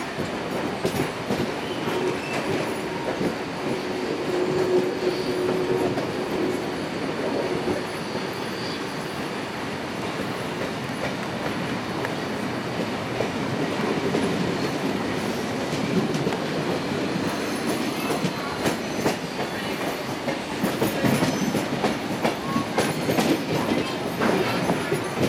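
Heritage passenger carriages of a steam-hauled train rolling slowly through station pointwork: a steady rumble of wheels on rail, with clicks and clatter over the points and joints that come thicker in the second half, and some wheel squeal on the curves.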